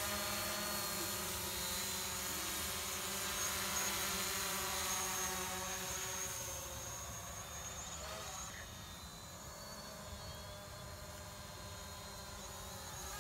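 DJI Mavic Pro quadcopter in flight, its four propellers giving a steady, high-pitched multi-tone whine that grows quieter after about six seconds.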